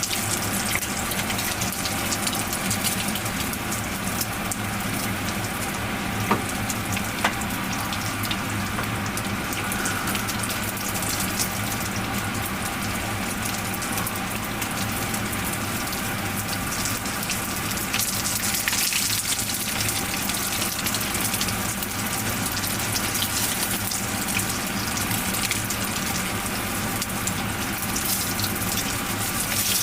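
Menchi katsu deep-frying in hot oil in a frying pan: a steady, dense sizzle and crackle, with two sharp ticks about six and seven seconds in.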